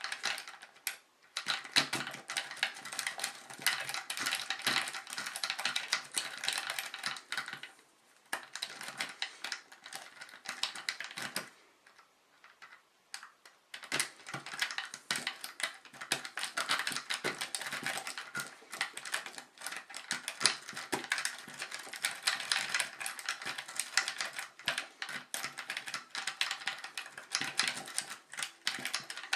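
Paperclip rake scrubbed in and out of a five-pin pin-tumbler lock under light tension from a paperclip tension wrench: a rapid run of small metallic clicks and scrapes as the pins are bounced and spring back. The raking stops briefly about a second in, around eight seconds in, and for about two seconds around twelve seconds in.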